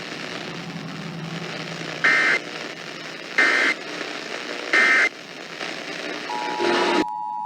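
Emergency Alert System end-of-message data signal: three short buzzing digital bursts about 1.3 seconds apart over radio hiss, marking the end of the alert. Near the end a steady two-note EAS attention tone starts, and the hiss cuts off.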